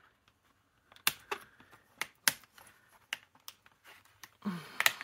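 Sharp, irregular plastic clicks as a thick plastic half-page lifter is snapped onto the 2-inch discs of a disc-bound planner, several separate clicks over a few seconds, the loudest about a second in, just after two seconds and near the end.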